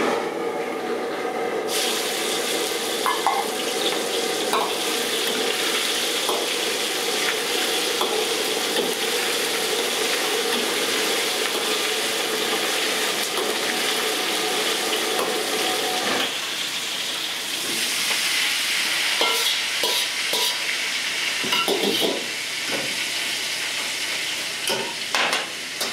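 Hot oil in a wok sizzling loudly as onion and green pepper pieces deep-fry, starting suddenly as they go in, with a ladle stirring through the oil. In the last few seconds metal clinks and knocks as a wire strainer and ladle scoop the vegetables out.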